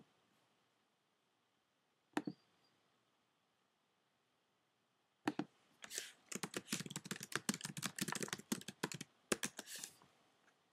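Typing on a computer keyboard: a quick, irregular run of key clicks lasting about four seconds, starting about halfway through, after a single click about two seconds in.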